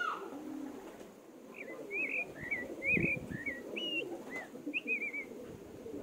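Ducklings peeping, a string of short high chirps, over low cooing calls from other farmyard birds, with a single dull thump about three seconds in.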